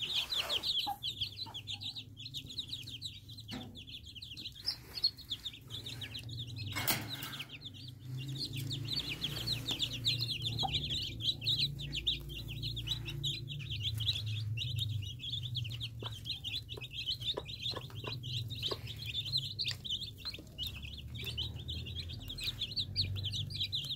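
Young chicks peeping nonstop, many short high chirps overlapping, with scattered light knocks and one louder bump about seven seconds in.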